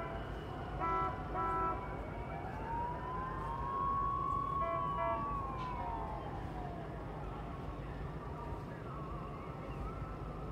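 Boat horns giving short toots, two in quick succession about a second in and another around five seconds in. A siren wails through the middle, rising in pitch, holding and falling away over about four seconds.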